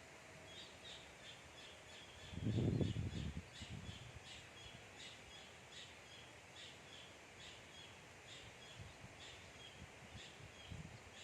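Outdoor riverside ambience with a bird chirping over and over, short high notes about three a second. About two seconds in, a loud low rumble lasts about a second.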